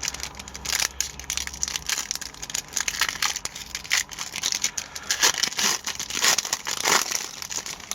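Wrapper of a pack of hockey cards being torn open and crinkled: a steady run of crackling and tearing.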